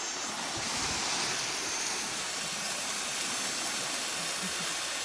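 Steady rushing and hissing of the trimaran's wake water churning past the stern as it sails.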